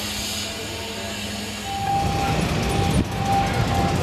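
Electric trolley car sounds: a steady hum, then from about two seconds in a louder rumble with a high tone breaking in and out and a single click.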